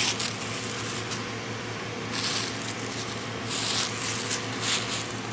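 Tissue paper rustling in a few bursts as a gift bag is unpacked, over a steady low hum of the van.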